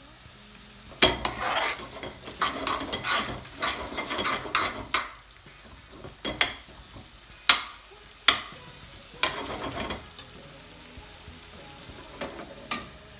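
Stirring a curry of chicken and spinach in an aluminium pan: a utensil scrapes and knocks against the pan over a low sizzle. After a few seconds of continuous scraping come several sharp separate taps, with one more near the end.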